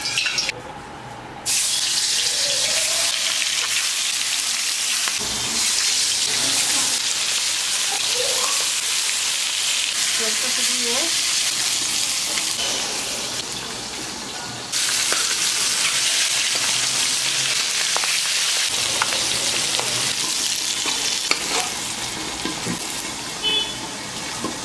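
Pangasius fish steaks frying in hot mustard oil in a karahi, giving a steady loud sizzle. A metal spatula clicks and scrapes against the pan now and then as the pieces are turned and lifted out.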